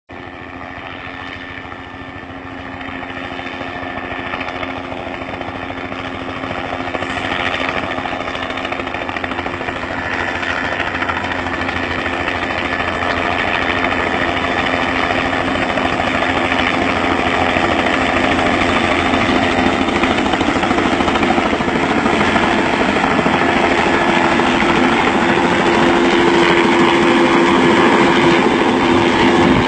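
Helicopter's rotor and engine growing steadily louder as it approaches, with a steady low hum that strengthens near the end.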